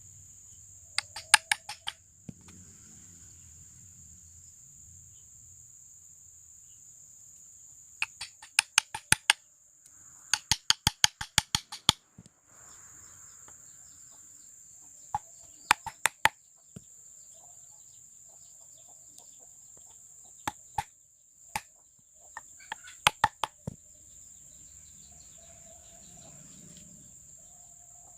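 Sharp, ringing strikes of metal on metal, in quick bursts of five to eight a few seconds apart, like hammer blows on the steel blade. A steady high hiss runs underneath.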